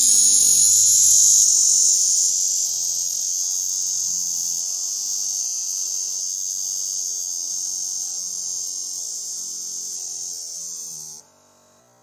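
Male Cassin's 17-year cicada (Magicicada cassini) giving its high-pitched buzz as it takes off in flight, slowed down sixteen times so that it is drawn out. The buzz is loudest at first, slowly fades and cuts off abruptly near the end.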